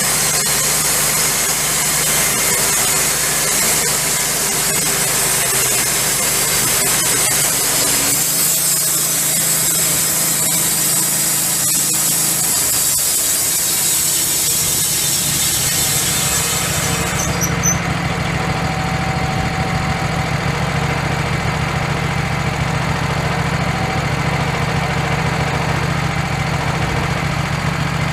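Wood-Mizer LT15 band sawmill running, its thin-kerf band blade hissing through a red oak log over a steady engine hum. About two-thirds of the way in the cutting hiss stops suddenly as the blade leaves the wood, and the engine runs on alone.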